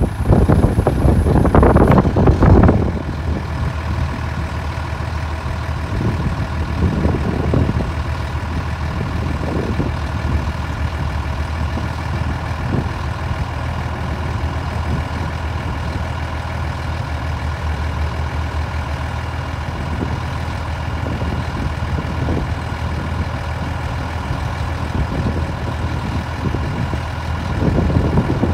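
A heavy dump truck's diesel engine idling steadily, louder for the first few seconds, as the truck sits parked with its hydraulic trailing axle being raised.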